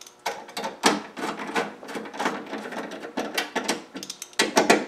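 Screwdriver working a screw on a Triumph Spitfire's steel inner door panel: a run of uneven metallic clicks and scrapes, with a cluster of sharper clicks near the end.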